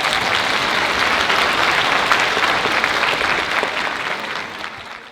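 Audience applauding, with many quick claps blending into a steady patter that dies away near the end.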